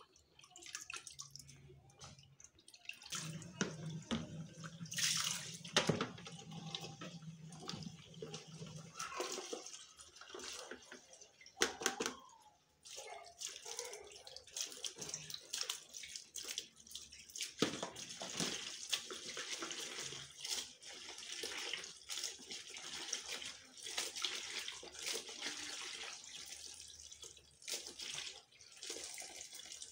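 Water running from a kitchen tap into a plastic basin of mushrooms while hands swish and rinse them, with continual splashing and a few sharp knocks.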